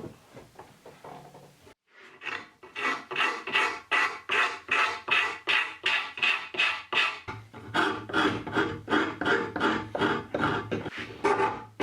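Hand rasp or file worked back and forth over oak, a steady run of rasping strokes about three a second.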